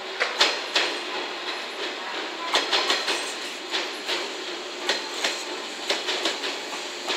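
A JNR 117 series electric multiple unit rolling past, its wheels clacking over the rail joints in irregular pairs and clusters over a steady rumble.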